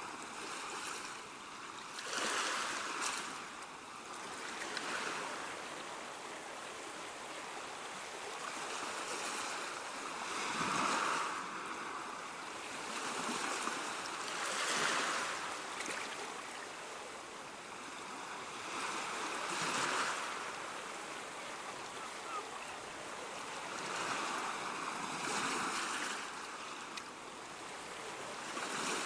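Ocean surf: waves washing in and breaking one after another, each surge swelling and fading every few seconds over a steady hiss of water.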